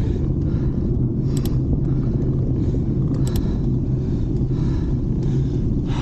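Steady low rumble of wind on the microphone and tyre noise from a road bike rolling down the road, with two short high-pitched clicks about one and a half and three seconds in.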